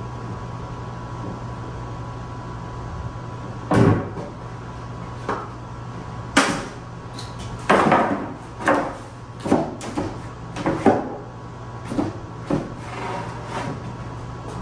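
An irregular series of about ten sharp knocks and clatters, like household objects being handled or doors being shut, beginning about four seconds in and ending near the end, over a steady low hum.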